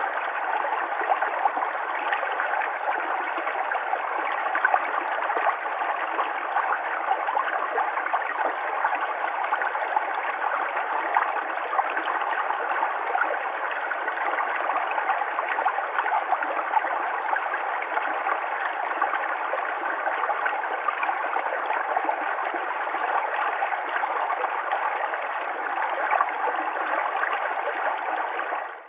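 Small stream flowing steadily, water trickling and gurgling over stones.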